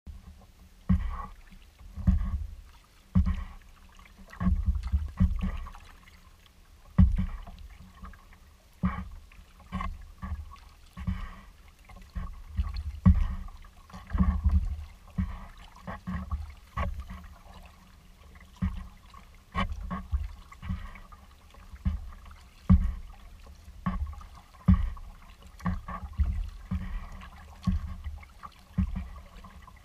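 Kayak paddle strokes in calm water, about one a second, each a short low splash.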